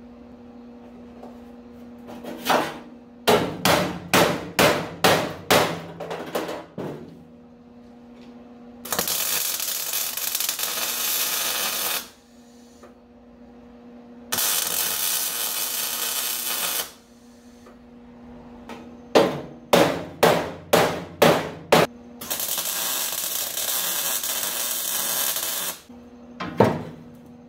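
Hammer blows on the sheet-metal trunk pan, two runs of about a dozen strikes at roughly two a second, alternating with three bursts of welding arc, each a steady hiss of about three seconds that starts and stops abruptly, as rosette plug welds are laid in.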